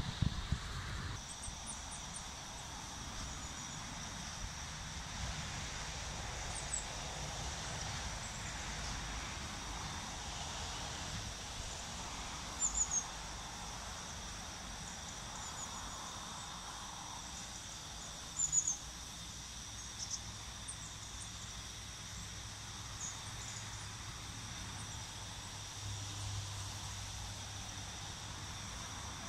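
Quiet outdoor background with small birds giving short high chirps now and then over a steady faint high whine. In the second half a low, distant rumble comes in.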